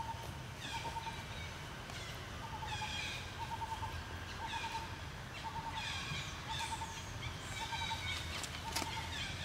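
Forest birds calling: one bird repeats a short, low trilled note about every three-quarters of a second, while others add higher, falling chirps over a steady low background rumble.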